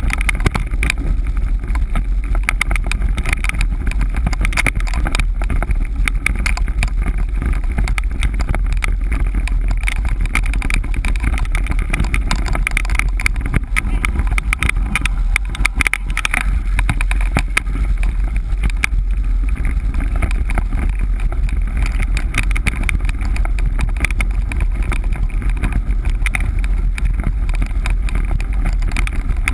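Dryland mushing rig rolling over a rough, wet dirt track behind a pair of dogs: a steady rumble of wheels on the ground, with frequent knocks and rattles as the rig jolts, and wind on the microphone.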